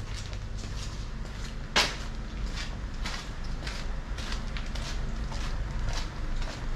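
Footsteps on paved ground at walking pace, about two steps a second, over a steady low city hum, with one sharp click about two seconds in.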